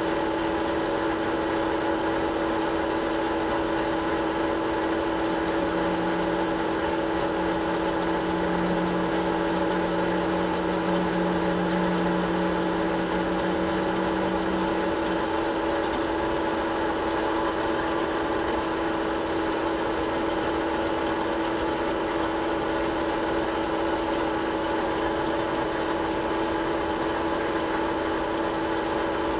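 Metal lathe running steadily as a boring tool cuts the bolt-nose counterbore into the end of a threaded rifle barrel tenon: a constant mechanical hum. An extra lower hum comes in about five seconds in and stops around fifteen seconds in.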